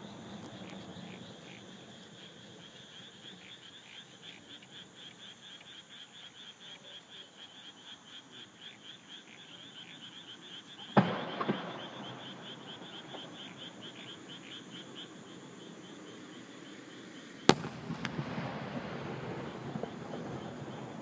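Night chorus of insects and frogs, a steady high-pitched pulsing at about four pulses a second. Fireworks burst twice over it: a bang with a smaller second report about halfway through, and a single sharp crack near the end followed by a spread of rumbling noise.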